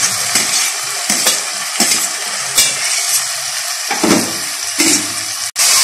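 Oil sizzling in an aluminium pressure cooker as chopped tomatoes are tipped onto frying onions, mint and ginger-garlic paste. A steel ladle stirs, scraping and knocking against the pot several times.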